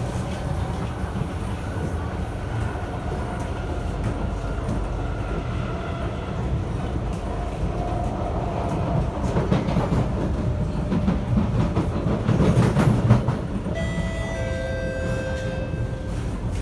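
Kawasaki & Nippon Sharyo C751B metro train heard from inside the carriage, running along the track with a steady low rumble and a faint motor whine. The wheels clatter louder about nine to thirteen seconds in, and near the end a few steady whining tones step down in pitch.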